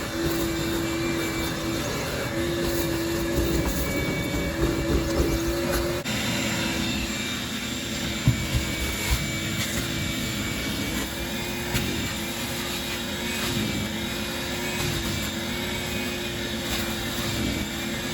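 A motor running steadily with a humming tone that dips and drops out briefly every second or two. A few sharp knocks come about eight and nine seconds in.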